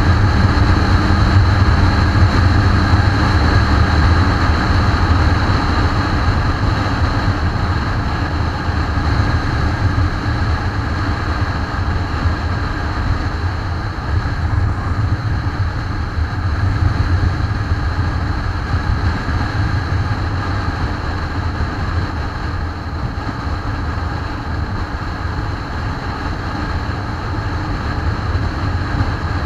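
Motorcycle riding at road speed: the engine's steady drone mixed with wind rush over the bike-mounted camera, with no sudden changes.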